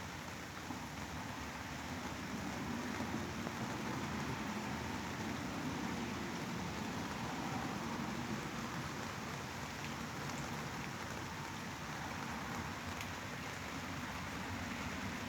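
Steady sleep-aid white noise: an even, unbroken hiss that sounds like rain, with a few faint ticks.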